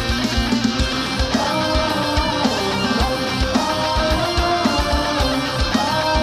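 Live metal band playing: distorted electric guitars hold a sustained melodic line over rapid kick drum hits.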